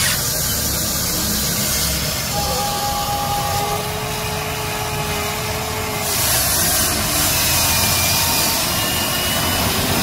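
Huina radio-controlled toy excavator's electric motors and gearboxes whirring steadily as the boom and bucket move through mud, with a few brief whines at different pitches as different motions run.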